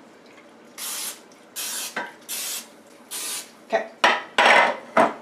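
Cooking spray being sprayed from an aerosol can into a metal muffin pan in four short hissing bursts. Near the end come metallic knocks and clatter as the pan is handled.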